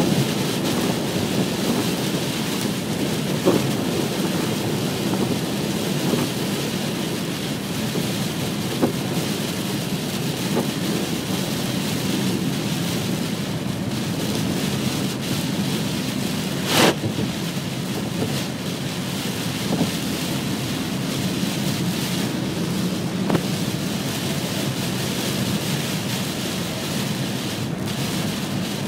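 Heavy rain drumming on a moving car's windscreen and body with road spray, heard from inside the cabin as a steady loud wash. A few sharp knocks cut through, the loudest about seventeen seconds in.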